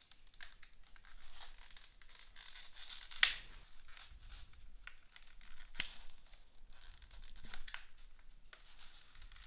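Clear plastic blister packaging of a Pokémon card box being pried open by hand, crinkling and crackling in irregular bursts. One sharp, loud snap about three seconds in, and a smaller one near six seconds.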